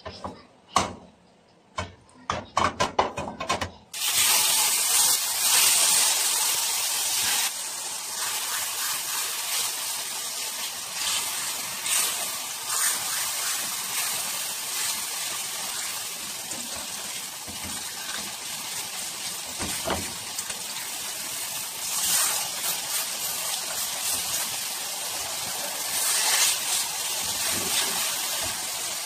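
Pork steaks sizzling in hot oil in a nonstick frying pan. After a few sharp clicks, the sizzle starts suddenly about four seconds in and runs steadily, swelling briefly now and then.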